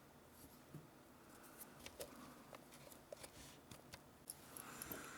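Faint, scattered light clicks and taps of small hard objects being handled, as a tool is picked out and the teardown parts are handled; otherwise near quiet.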